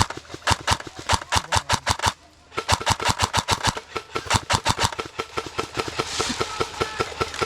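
Airsoft rifle firing shot after shot in quick succession: a string of sharp cracks, a short pause about two seconds in, then a steady run of about five shots a second.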